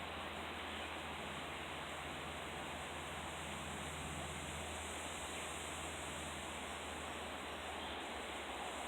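Steady wind noise: an even hiss with no distinct sounds standing out.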